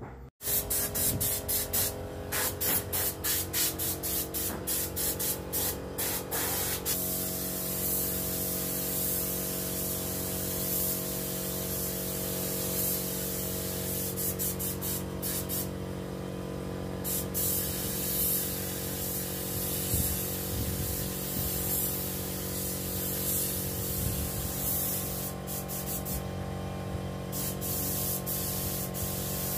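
Gravity-feed compressed-air spray gun spraying paint onto a table. It starts as a string of short on-off spurts, then settles into a steady hiss that breaks off briefly twice. A steady mechanical hum runs underneath.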